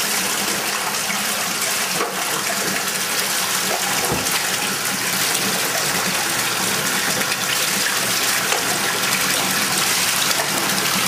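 Water running steadily into a bathtub from the tap, an even unbroken rush.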